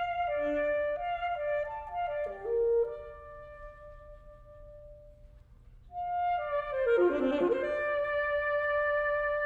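Alto saxophone with a wind band playing a slow, lyrical passage of held notes and a falling phrase. The music thins to a soft held tone a few seconds in, then swells back about six seconds in with a quick run and sustained chords.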